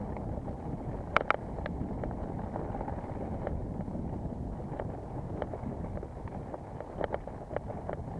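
Wind buffeting the microphone while a mountain bike is ridden, with scattered sharp clicks and rattles from the bike over rough ground; two louder knocks come about a second in and a few more near the end.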